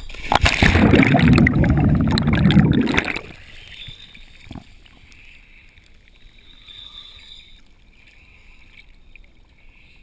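Seawater sloshing and rushing over a GoPro dive housing at the surface, loud for about three seconds and then dropping to a faint steady hiss, with one short knock midway.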